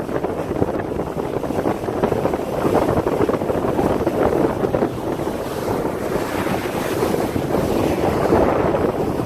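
Wind buffeting the microphone aboard a yacht: a steady rushing noise with no let-up.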